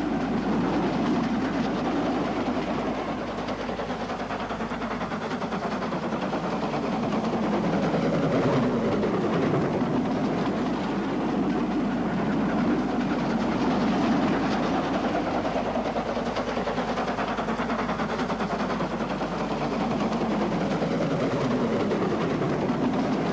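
Two Caledonian Railway 4-4-0 'Caley bogie' steam locomotives double-heading a passenger train on the climb from Blair Atholl towards Drumochter, their exhaust and running noise steady and continuous, swelling and easing a little.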